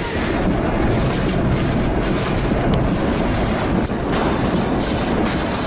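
Storm wind blowing hard across the microphone with rushing sea water: a steady, loud noise heaviest in the low end.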